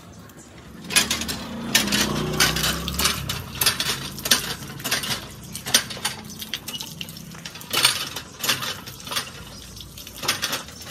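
Iron hand water pump being worked: its handle and rod clank repeatedly, starting about a second in and coming about once or twice a second, while the pumped water splashes out onto feet and concrete.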